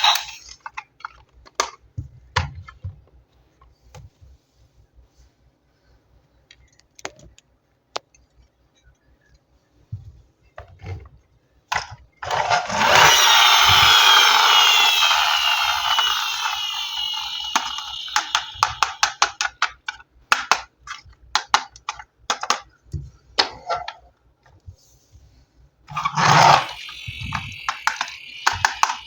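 Plastic toys and packaging being handled: scattered taps and clicks, then about twelve seconds in a loud rasping rustle that fades over several seconds into a fast run of small clicks, with another loud rustle near the end.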